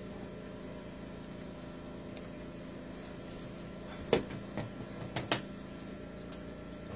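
Steady faint electrical hum, with a handful of light knocks and clicks about four to five and a half seconds in, the first one the loudest.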